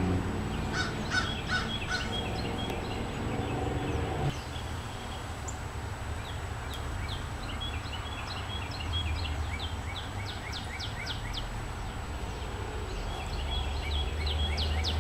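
Small songbirds chirping in quick runs of short high notes, in three bouts: early on, through the middle and again near the end. A low hum stops abruptly about four seconds in.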